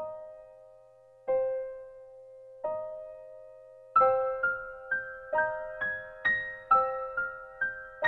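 Solo piano music: single ringing chords about every second and a half, then from about halfway a quicker line of notes at about two a second.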